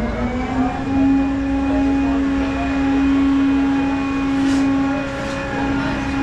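A vehicle running with a steady pitched drone that rises a little in pitch at first, then holds level.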